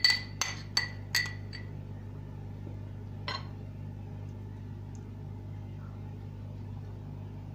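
A spoon clinking against a bowl as the herb-and-oil mixture is scraped out: a quick run of about five ringing clinks in the first second and a half, then one more about three seconds in, over a steady low hum.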